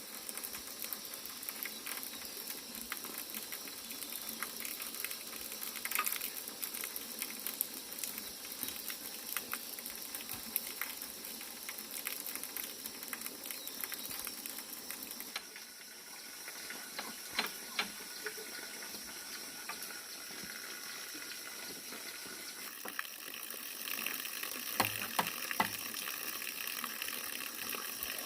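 Water running and splashing steadily, as from a bamboo spout into a fish pond, with scattered small knocks. The sound changes abruptly about halfway through and again near the end.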